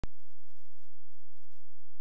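A faint steady hiss with no other sound, after a single click as the audio starts.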